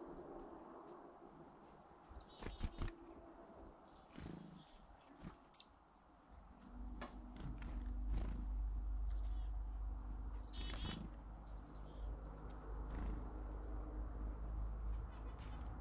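Small songbirds at the feeders giving short, high chirps scattered throughout, with a few sharp clicks, the loudest about five and a half seconds in. A low steady rumble sets in about halfway through.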